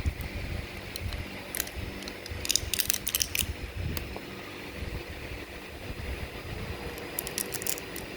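Light clicks and rattles of small parts being handled as a laser-gun focusing lens is opened and taken out, in clusters about two seconds in and again near the end, over a low rumble of handling noise.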